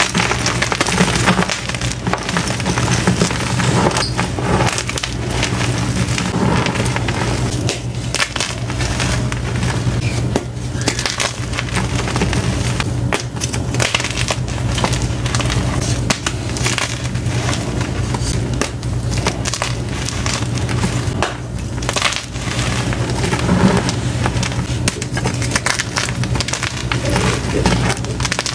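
Hands crushing and crumbling blocks of gym chalk, blue-dyed and plain white, into pieces and powder: a dense, continuous crunching and crackling.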